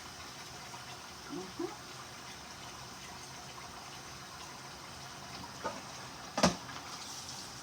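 Kitchen tap running steadily into the sink, with one sharp knock about six seconds in.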